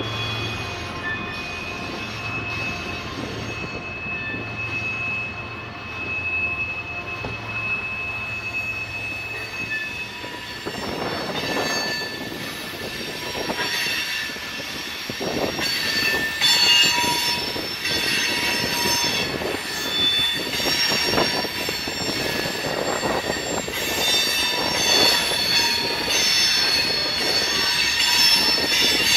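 Freight train of loaded covered hopper cars rolling through a curve, its steel wheels squealing against the rail in several steady high-pitched tones. After about ten seconds the sound gets louder and busier, with wheel clatter and knocks over the track.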